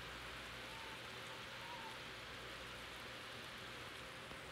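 Steady rain from a thunderstorm line, heard through a window.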